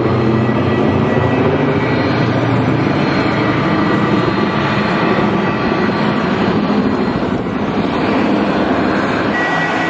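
B-17 Flying Fortress bomber's four radial piston engines droning steadily as it passes overhead.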